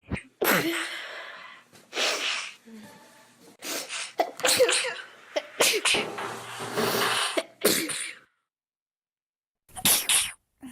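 People sneezing, several loud sneezes one after another, with a short silence near the end before one more.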